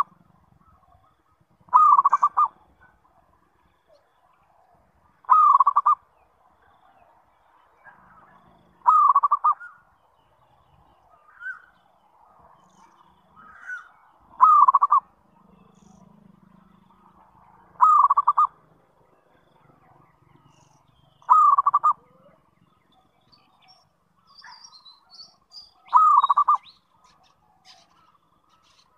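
Zebra dove (perkutut) cooing: a short phrase of rapid, pulsing coos, repeated seven times about every three to five seconds. It is the kind of song used as a lure to make other zebra doves answer.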